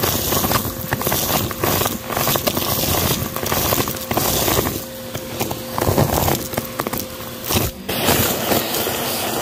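Vacuum cleaner running with its wand sucking a carpet full of confetti, sequins, glitter and beads: the debris crackles and rattles up the tube, over a steady motor whine. Near the end the crackling thins out to a more even rush of air.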